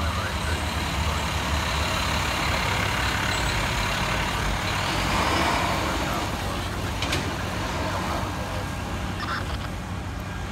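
Heavy fire-rescue truck's diesel engine and tyres passing close by, growing louder to a peak about five seconds in and then easing off.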